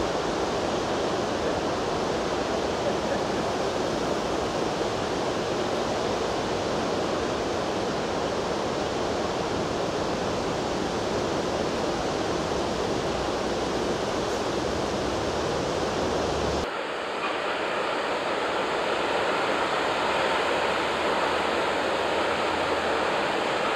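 Fast shallow river water rushing over stones in a steady, even rush. About three-quarters of the way through it changes abruptly to a higher, hissier rush of water pouring over a weir.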